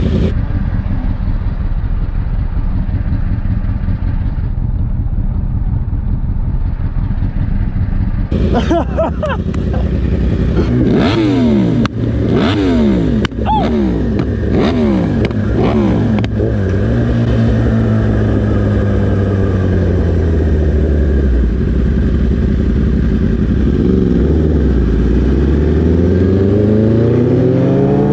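2017 Kawasaki ZX-10R's inline-four engine idling, then revving from about eight seconds in and accelerating hard through several quick upshifts, each a rising pitch that drops suddenly. It then runs steadily at speed before the pitch dips and climbs again near the end.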